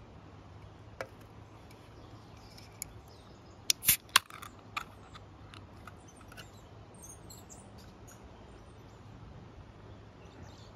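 A handful of sharp clicks and knocks, loudest in a quick cluster about four seconds in, with faint bird chirps in the background.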